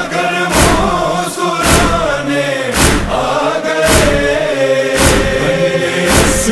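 A wordless male chorus holds a slow lament melody in a noha over a heavy, regular beat that strikes about once a second.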